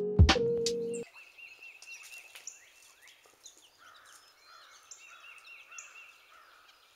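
A music track with a beat cuts off abruptly about a second in, leaving a faint outdoor background with birds chirping and calling.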